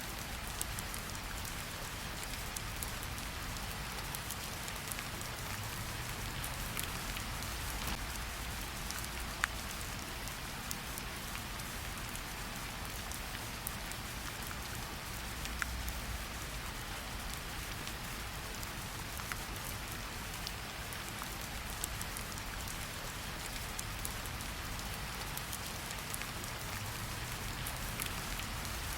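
Steady rain falling in an even hiss, with scattered sharp clicks and pops from a crackling wood fire and a soft low rumble underneath.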